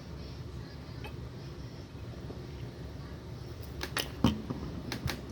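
Eating noises over a low steady room hum: a handful of sharp clicks and taps in the last second and a half, from mouth sounds or a utensil against the dish.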